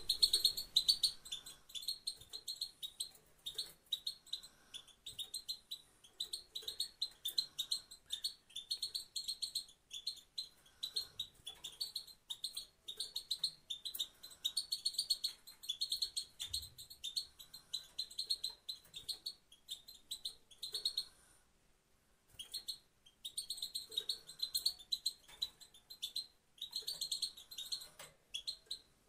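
Female European goldfinch singing: fast runs of high twittering chirps in phrases, with a break of about a second roughly three-quarters of the way through.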